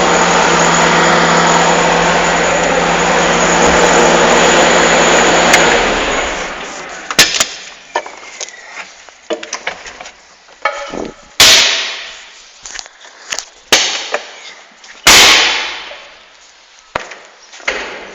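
Excavator's diesel engine running steadily, then shutting down about six seconds in. After that come scattered sharp knocks and a few loud thumps.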